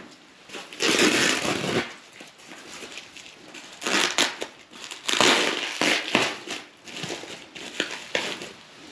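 Bubble wrap crinkling and crackling in several bursts as it is handled and pulled off a wrapped exhaust muffler.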